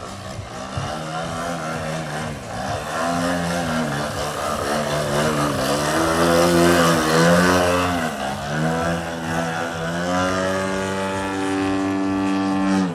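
Radio-controlled Edge 540 aerobatic model plane's engine and propeller in flight, the pitch dipping and rising again several times as it throttles and swoops through manoeuvres. It then holds a steady, higher note for the last few seconds before cutting off suddenly.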